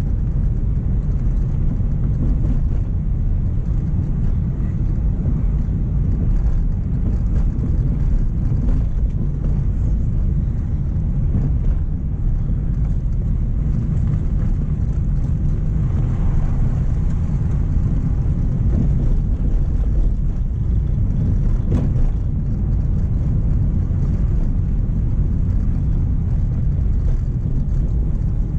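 Steady low rumble of engine and tyre noise inside the cabin of a Mk1 Renault Clio driving along a country lane, with a single knock about two-thirds of the way through.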